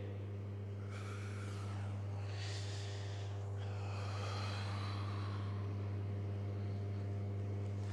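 Steady low background hum, with two soft breathy exhalations, one about a second in and a longer one from about two to three and a half seconds in.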